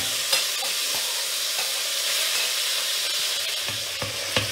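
Minced meat frying in a pot, sizzling steadily, with a couple of knocks from a wooden spoon stirring it.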